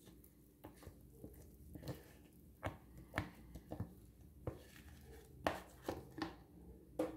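Faint, irregular soft taps and knocks as thick batter is poured from a bowl into a metal loaf pan, a dozen or so small sounds spread through the pour.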